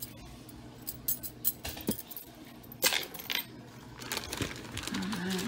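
Metal costume jewelry clinking and jangling as the pieces are handled: a few separate light clinks, loudest in a short cluster about three seconds in.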